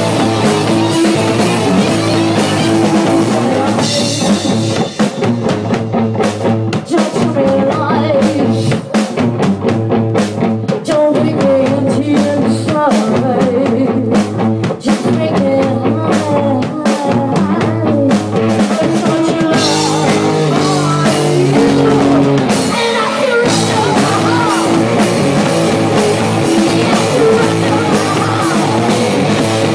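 Live punk rock band playing loud: drum kit, electric guitar and a singer. From about four seconds in the playing turns sparser and choppy, with short stops, and the full band comes back in near twenty seconds.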